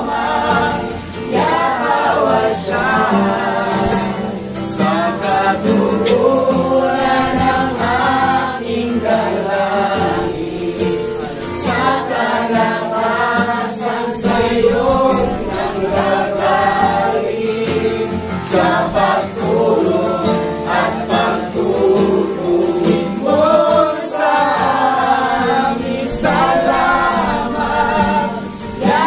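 A congregation singing a Tagalog worship song together, accompanied by an acoustic guitar.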